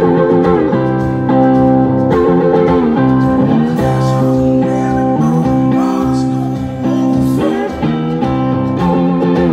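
A live blues-rock band playing loud and steady: electric guitars, slide guitar among them, with a male voice singing.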